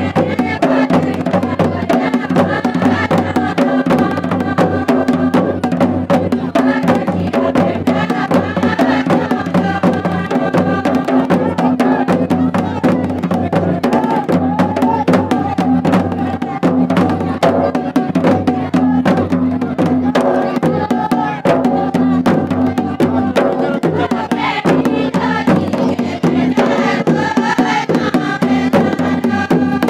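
Traditional folk dance music: singing over a fast, steady drum beat.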